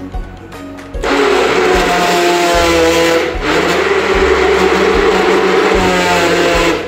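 Small personal blender starting about a second in and running loud with a short dip about halfway, then cutting off near the end, as it blends fruit, yogurt, ice and water into lassi.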